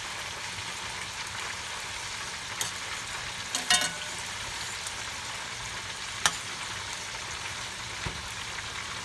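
Steady sizzling hiss of frying, with a spoon stirring a saucepan of melted butter and hot sauce. The spoon knocks against the metal pan a few times, ringing briefly about four seconds in and tapping sharply about six seconds in.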